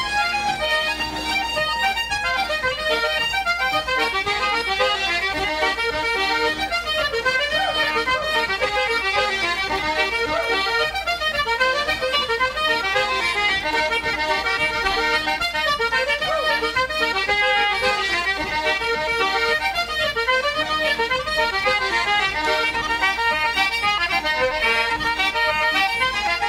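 Irish traditional dance music played on button accordion and concertina, a steady run of quick, closely spaced notes.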